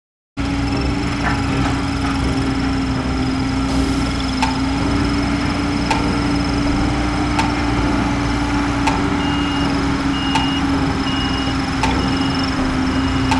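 Diesel engine of heavy construction machinery running steadily with a low hum and a light tick about every second and a half. From about nine seconds in, a vehicle's reversing alarm beeps evenly over it.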